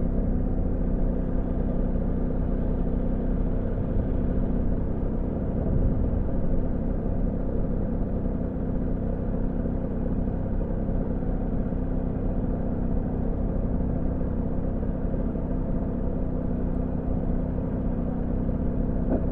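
Honda Gyro scooter engine running steadily with an even low drone.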